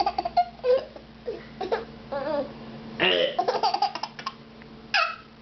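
Baby laughing in a string of short pitched giggles, with two louder breathy bursts of laughter about three seconds in and near the end.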